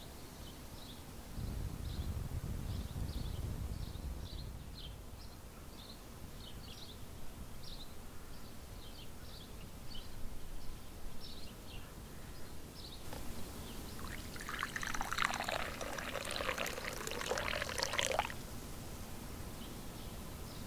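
Hot tea being poured into a cast-iron cup: a splashing trickle lasting about four seconds that stops abruptly. Before it there are faint, high chirps repeated every half second or so and a brief low rumble.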